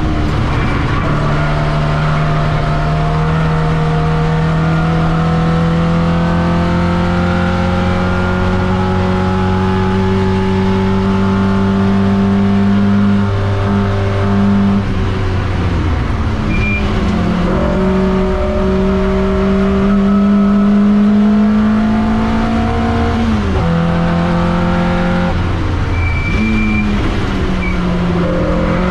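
TVR Vixen race car's engine heard from inside the cockpit at racing speed: its pitch climbs slowly and steadily for about the first half, then drops and rises again several times in quick succession through the corners.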